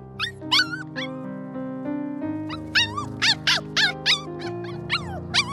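A puppy's high-pitched yips and whimpers: a few short calls in the first second, then a quick run of them in the second half, each call rising and falling in pitch. Steady background music plays underneath.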